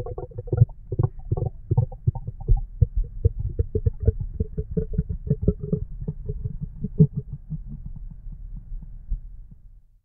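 A man's hungry stomach growling: a rapid, irregular run of gurgles and bubbly pops over a low rumble, dying away near the end.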